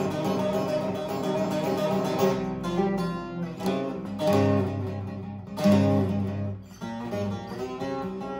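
A divan saz (large long-necked bağlama) with a 45-size mahogany bowl and a spruce top, played in a quick run of plucked and strummed notes. Two louder, deeper strummed chords ring out about halfway through.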